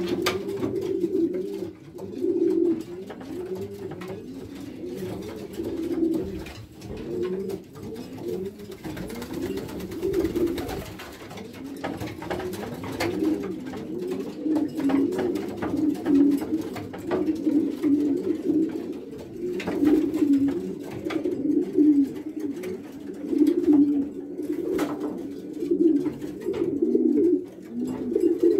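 Racing pigeons cooing, several birds' coos rising and falling one after another without a break: the courtship cooing of newly paired birds.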